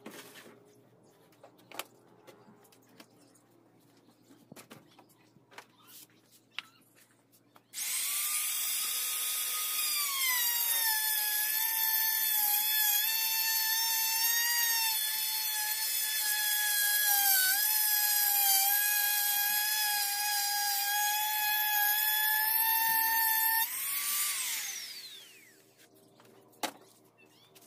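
Handheld router starting up about eight seconds in with a high whine. Its pitch drops slightly as the bit bites into the wood panel, and it runs steadily for about thirteen seconds, cutting the groove for a sliding door's wheel track. It is then switched off and winds down with a falling whine, and a few light knocks of handling come before and after.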